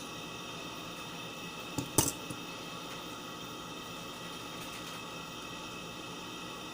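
Steady hiss with one sharp click about two seconds in, a smaller tick just before it and another just after.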